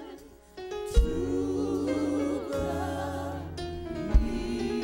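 Gospel music with singing and instrumental accompaniment, coming in after a brief lull about half a second in, the held notes sung with a wavering vibrato. Two sharp low thumps stand out, about a second in and near the end.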